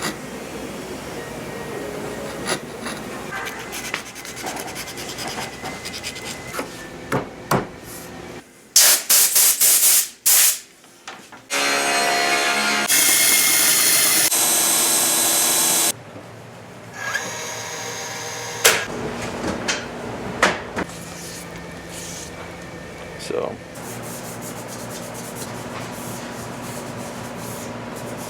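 Woodworking shop sounds: scattered knocks and clicks of hand work on wood, then a run of four or five loud strokes. Next a power tool runs steadily for about four seconds, louder partway through, before the knocking and clicking resume.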